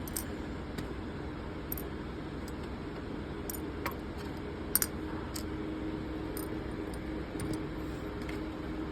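Small metal lighter parts being dropped into a dish: a scatter of light clinks, a close pair of them near the middle, over a steady low hum.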